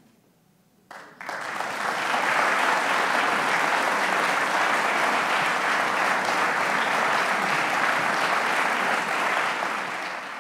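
Audience applause breaking out about a second in after a brief hush, swelling quickly and then holding steady.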